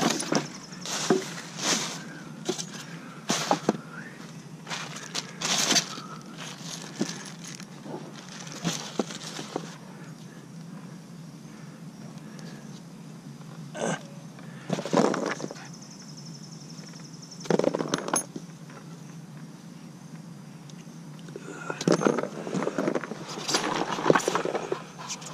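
Irregular knocks, clanks and clatter of curbside junk being handled and moved while scrapping, coming in bursts that are busiest at the start and near the end, over a steady low hum.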